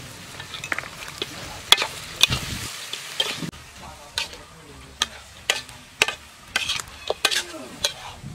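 Metal spatula scraping and clinking against a metal wok while stirring chopped goose meat, in irregular strokes about two a second, over a soft sizzle of the meat frying.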